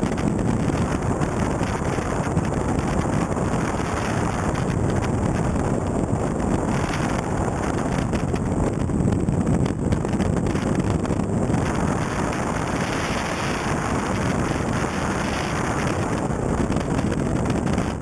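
Mitsubishi Lancer Evo 3 rally car at speed on a gravel stage, heard from a camera on its bonnet: its turbocharged four-cylinder engine running under load and tyres on loose gravel, buried in heavy wind noise on the microphone.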